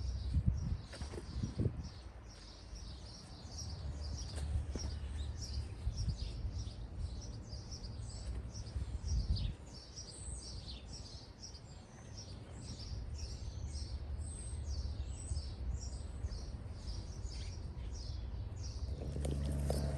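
Songbirds chirping, a dense run of short, high, downward-sweeping calls that repeat without a break, over a steady low rumble. A few soft knocks come in the first two seconds.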